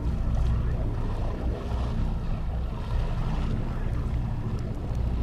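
Fishing boat's engine running steadily with a low hum, under wind on the microphone and the wash of the sea.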